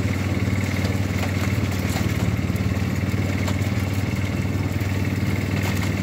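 Engine of a homemade off-road 'mule' converted from an antique car, running at a steady, even pitch while the vehicle drives across a field, with scattered clicks and rattles.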